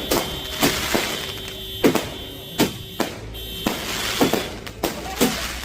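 Firecrackers going off as a string of separate sharp bangs at uneven intervals, about nine of them, with music playing underneath.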